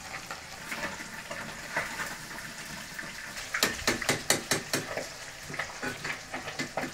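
Food frying in a pan with a steady sizzle. About halfway through comes a quick run of metal utensil clicks and scrapes against the pan, about five a second, then a few scattered ones.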